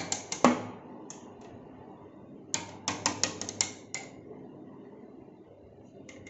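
Kittens scrambling on a window ledge, their paws and claws knocking against the window glass and frame. There are two bursts of quick sharp taps, one at the start and another about two and a half seconds in.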